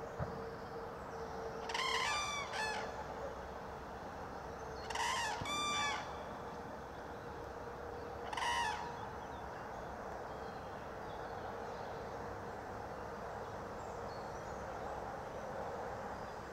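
Common cranes calling: three short bouts of loud, trumpeting calls, about two, five and eight seconds in.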